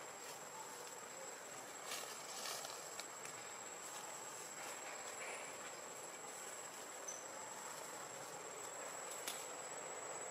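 Steady high-pitched insect drone over faint outdoor ambience, with a few soft clicks.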